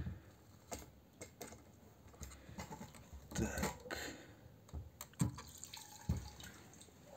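Fuel pump module being lifted out of a car's fuel tank: quiet, scattered plastic clicks and knocks, with petrol dripping and trickling off the module back into the tank.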